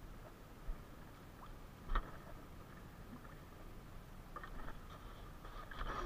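Faint knocks and small clicks aboard a small outrigger fishing boat as it rocks on calm water, with one sharper knock about two seconds in.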